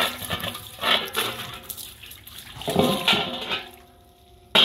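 Water splashing and sloshing in a metal basin as it is rinsed with a running hose, in irregular surges. Near the end the basin is tipped and its water dumps onto the concrete floor with a sudden loud splash.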